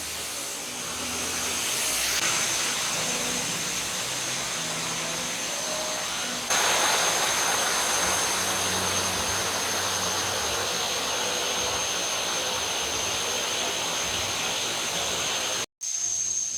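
Waterfall water rushing with a steady hiss, louder from about six and a half seconds in, with a thin steady high tone above it. The sound cuts out briefly near the end.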